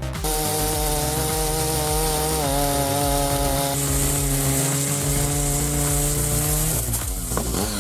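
Stihl MS 881 two-stroke chainsaw running at high revs under load as it cuts through a very large log. Its pitch dips slightly about two and a half seconds in, and the sound briefly changes near the end.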